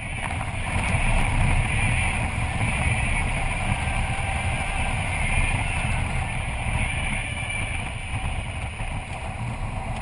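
BMW F650GS motorcycle riding at road speed: a steady mix of engine drone and wind and road noise, fading in over the first second and then holding.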